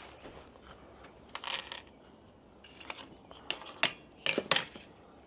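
Scattered light clicks and clinks of small metal hardware being handled: the new screen-door hinges, their screw covers and screws. Most of them come in a cluster past the middle.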